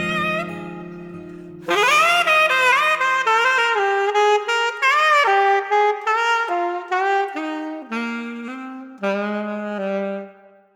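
Saxophone playing a slow, bending melody with vibrato as the instrumental outro of a Chinese pop ballad. Held backing chords fade out in the first few seconds, and the last saxophone notes die away just before the end.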